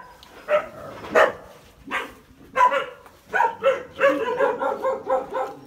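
Dogs barking: a few separate barks, then a fast, continuous run of barks from about halfway through.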